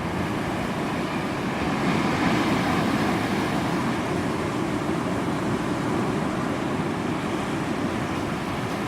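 Ocean surf breaking and washing on a beach, a steady rushing noise that swells a little about two seconds in.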